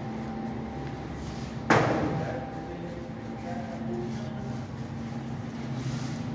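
Steady machine hum in a bakery, with one sharp knock of a hard object about two seconds in.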